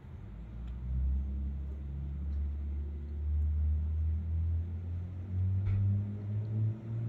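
A motor vehicle's engine running with a low hum that rises slowly and steadily in pitch and grows louder.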